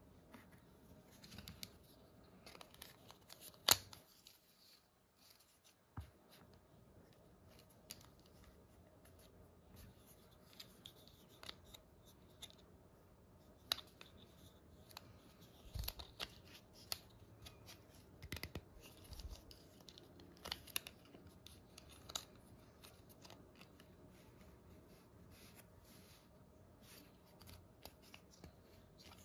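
Hard plastic parts of a 5-gallon water jug spigot being handled and fitted together: faint scattered clicks and taps of plastic on plastic, the loudest about four seconds in.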